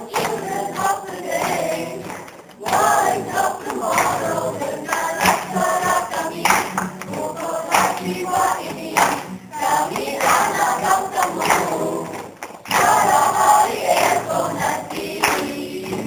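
A choir of women and men singing together, with a few sharp claps scattered through. The singing breaks off briefly about two and a half seconds in and again about twelve seconds in.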